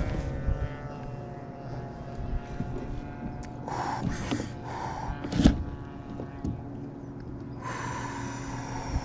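Steady drone of a distant engine, with a single knock about five and a half seconds in.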